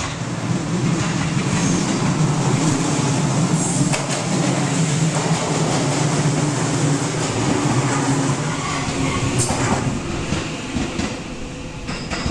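Electric passenger train passing close by, its wheels rumbling along the rails; the sound swells as the train draws level and eases a little near the end as it moves away.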